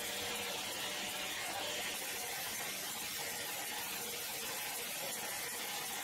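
Large band sawmill running, a steady mechanical noise with a faint low hum.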